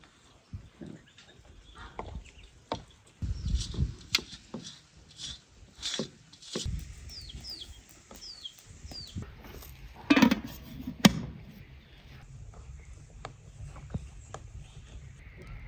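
Scattered knocks and clatter of metal cookware as boiled rice is tipped from a colander and layered into an aluminium pot, with two sharp metal knocks about ten seconds in as the lid goes on. Four short falling chirps from a bird come in the middle.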